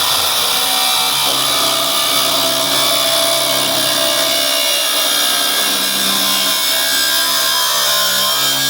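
Power tool cutting through the steel housing of an electric motor: a loud, steady cutting noise with ringing tones that shift in pitch as the metal is cut.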